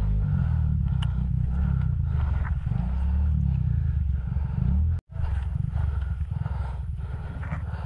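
Motorcycle engine running while riding. The sound cuts out for an instant about five seconds in.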